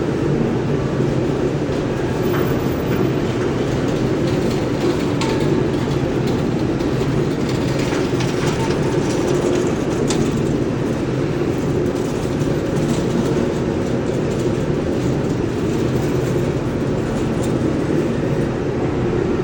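Ladle refining furnace running: a loud, steady industrial rumble with scattered crackles through it.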